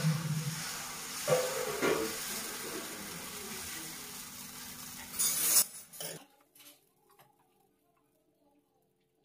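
Metal ladle spreading dosa batter in circles on a hot tawa: a steady sizzling hiss, with louder scrapes of the ladle on the pan about one and two seconds in and a loud burst of hiss around five seconds. The sound cuts off abruptly about six seconds in, leaving only faint small sounds.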